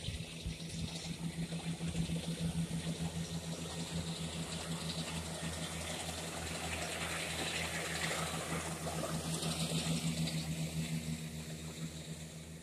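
Case IH tractor's diesel engine running steadily as it drives past pulling a hay mower, with the mower's hiss mixed in. It grows louder toward a peak and fades away near the end as it moves off.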